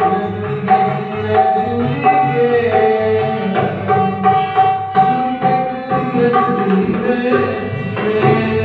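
Indian music with tabla drumming a steady rhythm under a sustained melody line.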